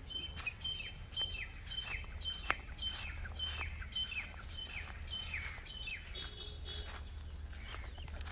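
A bird calling over and over, about twice a second, each call a short high note then a quick falling whistle. A few sharp clicks of footsteps on the dry dirt path, the loudest about two and a half seconds in.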